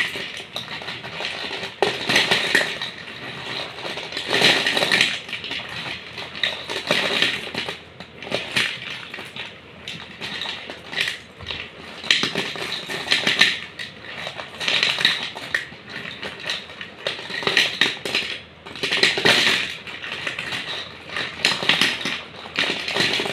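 Hard, dry white snack sticks clattering against each other and a steel plate as hands stir, scoop and drop them, in uneven rattling bursts.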